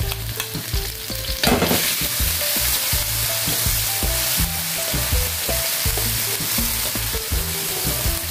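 Minced garlic and sliced chili sizzling in hot olive oil in a wok, with a spatula stirring and scraping against the pan. The sizzle swells about one and a half seconds in and stays strong.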